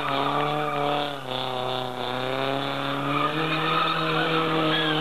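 Car engine held at high revs, its pitch sagging slightly and then climbing again as the car is driven through a driving-skill test.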